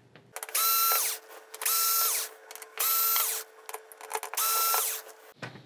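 Cordless drill/driver backing out four screws one after another: four short runs of motor whine, each spinning up, holding steady for under a second, then winding down, with short pauses between.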